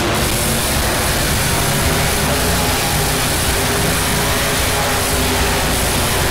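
Monster truck Higher Education's engine running, a loud steady drone with no sharp revs or impacts.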